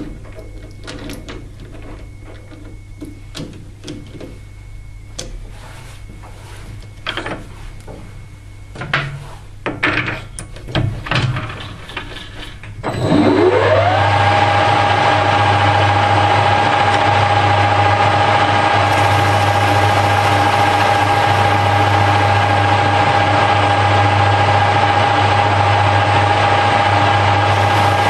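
A series of clicks and knocks as the workpiece is handled and reset. Then, about halfway through, a Harrison L5 lathe starts up: its whine rises over about a second to a steady pitch, and the lathe runs on steadily with a strong hum.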